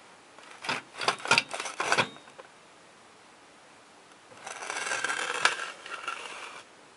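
Handling noise of a camera being moved and set down on carpet: a quick run of clicks and knocks, then a longer scraping rustle a few seconds later.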